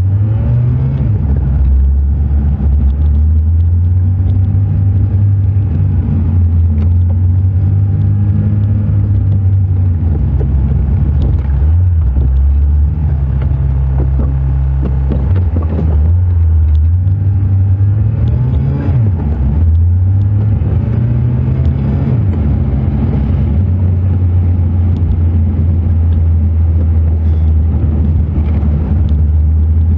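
Car driving on the road: a steady low engine and road rumble, with the engine note rising and falling a few times around the middle as the speed changes.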